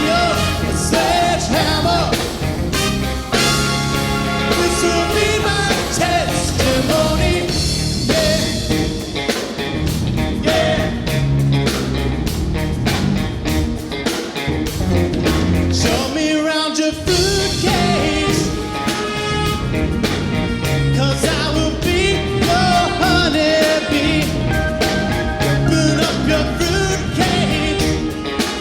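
A live band playing a rock-soul cover with a horn section of saxophones and trumpet over drums, bass and guitar, with singing. About two-thirds of the way through, the bass and drums drop out for a moment before the band comes back in.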